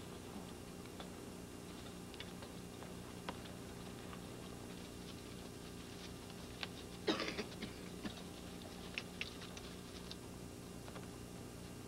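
Horses of a mounted column moving over snow: faint, scattered clicks and knocks of hooves and tack, with a short flurry of them about seven seconds in, over a steady low hum.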